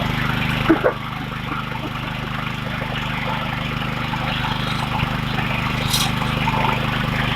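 A small engine-driven machine running steadily at an even speed, with a couple of light knocks just before a second in and a sharp click about six seconds in.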